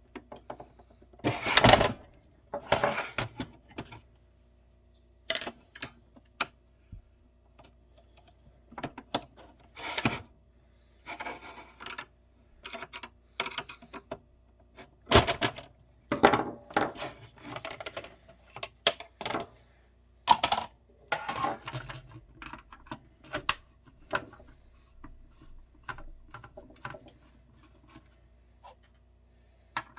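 Irregular clicks, knocks and short scraping rubs of a lid's hard parts being handled and taken apart by hand, over a faint steady hum.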